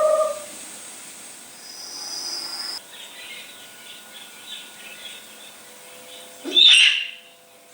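Barn owl calls: a faint rasping, flickering stretch, then one short loud screech near the end. A steady tone cuts off about half a second in.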